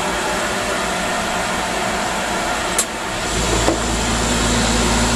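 Wood lathe motor running with a steady hum. A sharp click comes nearly three seconds in, after which a deeper hum sets in.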